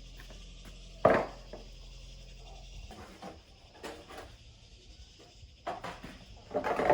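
Several knocks and clatters of hard objects being handled and set down, the loudest about a second in and a cluster near the end. A low steady hum stops about three seconds in.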